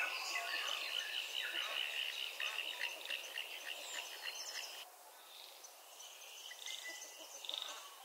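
Wild birds singing and chirping, with a steady high trill through the first half that drops away about halfway, then a few more scattered chirps near the end.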